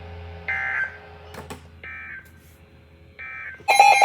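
Three short bursts of Emergency Alert System (SAME) digital data tones, each a fraction of a second long and about a second and a half apart, over a low radio hum. Near the end a loud alert attention tone starts.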